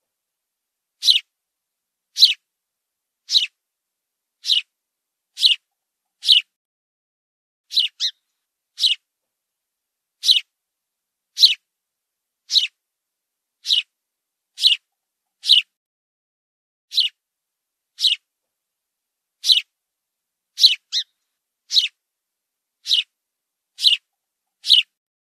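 House sparrow chirping: single short chirps at about one a second, each dropping sharply in pitch, with silence between them and a few coming in quick pairs.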